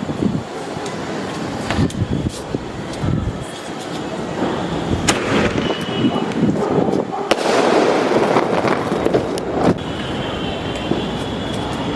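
Mini aerial fireworks (Color Gems) going off: a string of sharp pops and bangs, with a denser, noisier burst from about seven to ten seconds in.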